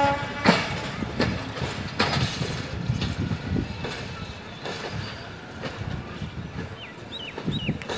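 Passenger coaches of a departing diesel train rolling away over the track, the wheels knocking irregularly about once a second over a low rumble that fades as the train recedes.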